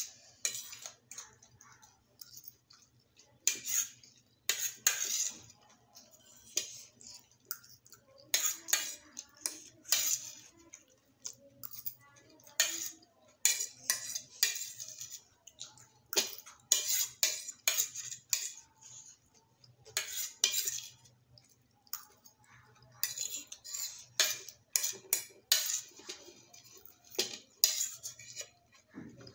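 Metal forks scraping and clinking against plates as the last noodles are eaten, in irregular clusters of short scrapes and taps, over a faint steady low hum.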